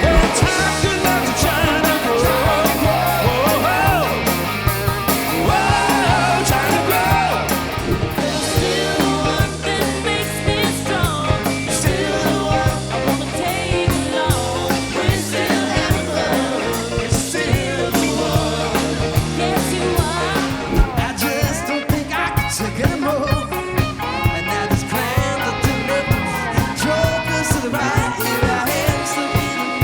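Rock band playing a 1970s album-oriented rock song: a lead singer over electric guitar, a steady bass line and drums.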